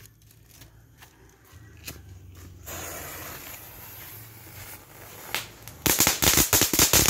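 A small ground firework lit on paving. Its fuse hisses for a few seconds, then about six seconds in it bursts into a rapid run of loud crackling pops.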